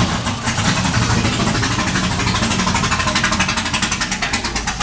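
Straight-piped V8 engine of a race truck idling loud, a rapid even train of exhaust pulses with some sputtering. It is running on a rough first-start base map with months-old fuel, which the crew think could be a reason for the sputtering.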